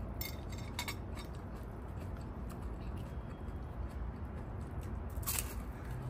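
Shrimp crackers (bánh phồng tôm) being bitten and crunched: a few sharp, crisp cracks near the start and a louder one near the end, over a steady low rumble.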